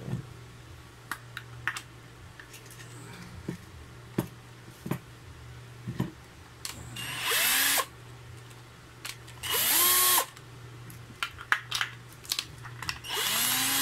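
Power drill fitted with a hook-and-loop scouring-pad backing plate, run in three short bursts, the motor whine rising as it spins up and falling as it stops. Sharp clicks and knocks from handling the drill and chuck come between the bursts.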